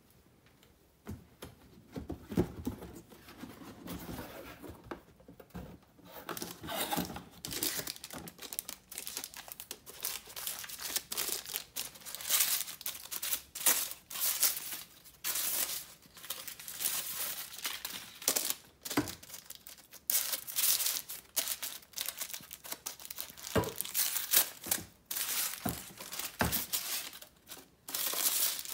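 Brown kraft packing paper crinkling and tearing in irregular handfuls as it is stripped off a carbon bicycle handlebar, starting about a second in.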